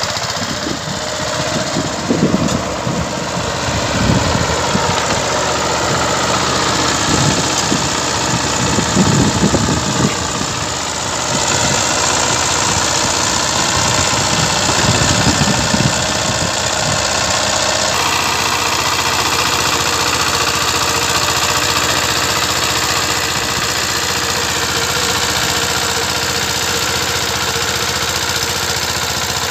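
VST Shakti 130 power tiller's single-cylinder diesel engine running steadily with a fast knocking beat while the walk-behind tractor works through field soil.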